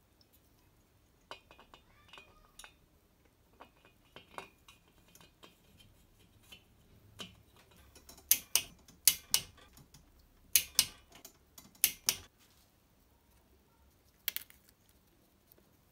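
Click-type torque wrench on the cylinder head nuts of a Vespa 150 VBB engine, snapping over at its 13 Nm setting: about eight sharp metallic clicks in four close pairs, after softer clinks of metal parts being handled.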